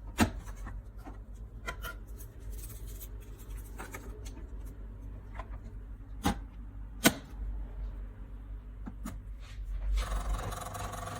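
Tassimo Vivy 2 pod coffee machine mid-brew with its pump paused: a low hum with scattered clicks and ticks, three of them sharper. About ten seconds in, the pump starts again with a steady buzz.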